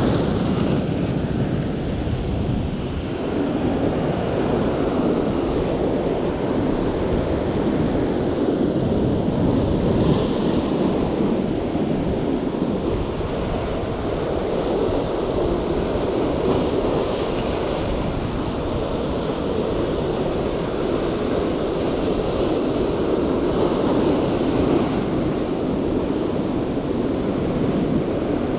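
Ocean surf breaking and washing over the rocks in a steady wash, with wind buffeting the microphone.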